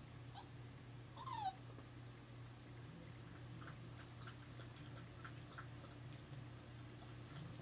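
Italian greyhound puppy crying: one short falling whine about a second and a half in, a faint squeak before it, and a few faint short squeaks later, over a steady low hum. The owner thinks he is crying because he misses his mother.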